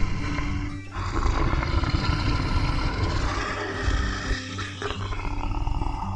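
A large animal roaring, one long rough roar with a short break near the start, over background music.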